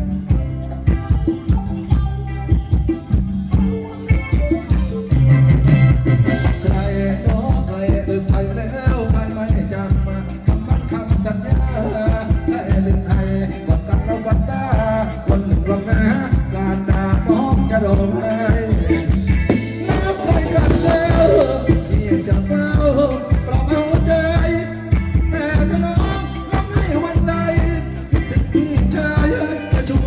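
Live Thai ramwong dance band playing music with a steady beat.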